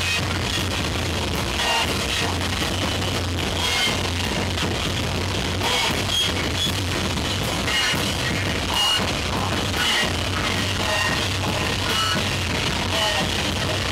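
Live noise rock from a bass-and-drums duo: heavily distorted bass guitar over pounding drum kit, a loud, dense wall of sound with no break.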